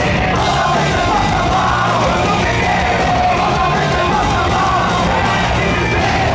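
Hardcore punk band playing live, with distorted guitars, bass and drums under a yelled lead vocal, heavily compressed and distorted by a handheld recording at the show.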